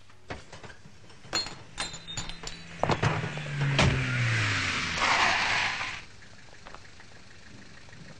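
Sound effects of wrecked cars settling after a crash: a scatter of sharp knocks and clicks, a low sound that falls in pitch about three seconds in, and a short hiss about five seconds in, then a low steady background.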